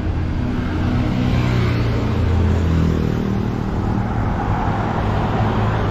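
Road traffic on a busy town street, with a motor vehicle's engine passing close by, loudest about two to three seconds in.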